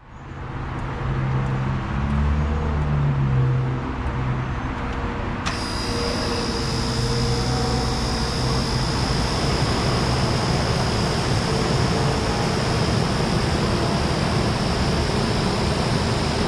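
A low rumble in the background, then about five and a half seconds in, a 1987 Carrier Round One 38EH 5-ton condensing unit with a Carlyle P-series compressor kicks on all at once. Its three-phase startup is instantaneous, and it settles straight into a steady run of fan rush with a high whine.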